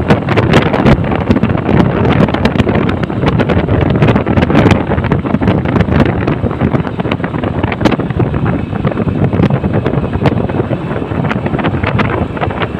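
Heavy wind buffeting the microphone on the move, in uneven gusts, over steady road and vehicle noise.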